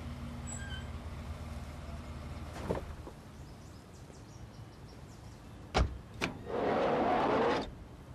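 Car sounds: a car idling with a steady low hum, a knock under three seconds in, then a door shutting with two sharp knocks about six seconds in, followed by about a second of loud rushing noise near the end.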